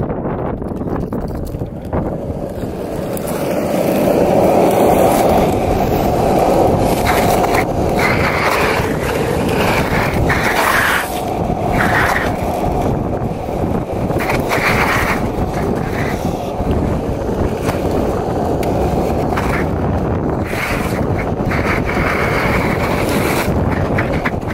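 Inline skate wheels rolling over rough asphalt: a steady, gritty rolling rumble, louder from about four seconds in, with a few brief scrapes now and then.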